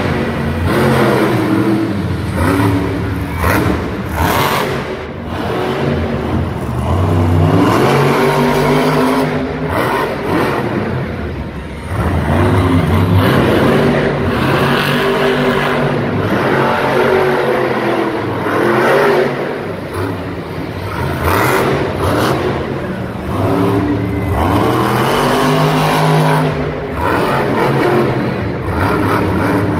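Monster truck's supercharged V8 engine revving hard over and over, its pitch sweeping up and falling back in long surges as the truck drives and wheelies on a dirt arena floor.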